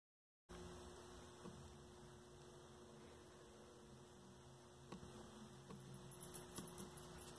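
Dead silence for the first half-second, then a faint steady electrical hum. A few faint small ticks come through, more of them toward the end, as a tiny bulb held in a helping-hands clamp is handled during desoldering.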